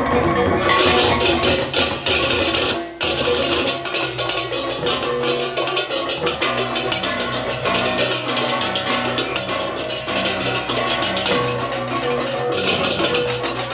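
Balinese baleganjur gamelan ensemble playing: rapid interlocking clashes of handheld cymbals (cengceng) over kendang drums and ringing gongs. The whole ensemble stops for an instant about three seconds in, then carries on.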